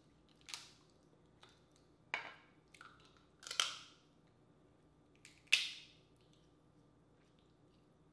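Dungeness crab shell cracking and crunching as it is broken apart and eaten: a handful of sharp, short cracks a second or two apart, the loudest about five and a half seconds in.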